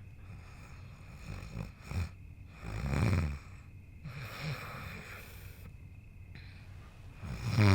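A person snoring in bed: a short snort about two seconds in, a louder snore about a second later, a softer one midway, and a loud, drawn-out snore near the end.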